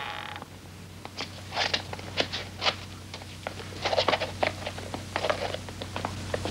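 Footsteps going up a staircase: an irregular run of soft knocks and scuffs with some rustling, over a steady low hum.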